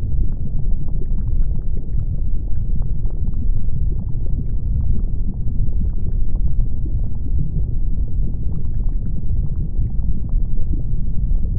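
Lava and volcanic eruption: a deep, steady rumble with scattered small crackles and pops.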